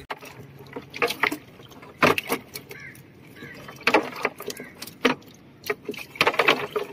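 Wet cast net being gathered and shaken out onto a plastic boat floor: its weighted lead line clinks and rattles in short bursts, several times, as the catch of small fish drops out.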